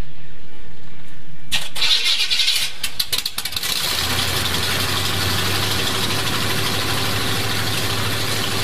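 1980 Chevrolet K5 Blazer engine starting cold through open headers with no exhaust: it stumbles with a few uneven pops, catches about four seconds in and settles into a steady idle.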